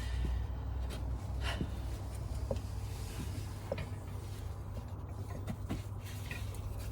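Faint clicks and knocks of a Yamaha FJR1300's front brake caliper being jiggled off its disc, over a steady low hum.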